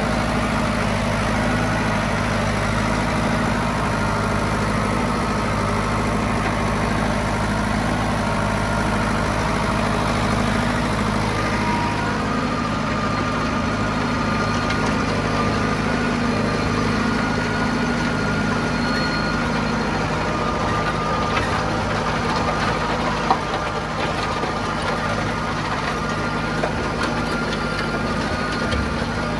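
County 764 tractor's diesel engine running steadily under load, driving a PTO rotary cultivator that is working the soil. A single sharp click a little over two-thirds of the way through.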